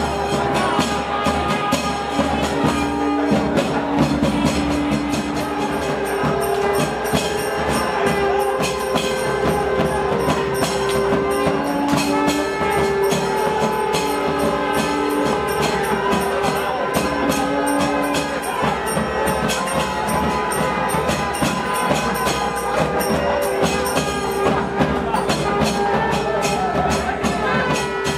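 Temple procession music: a wind instrument holds long notes, one to three seconds each, over fast, steady drumming and jingling percussion.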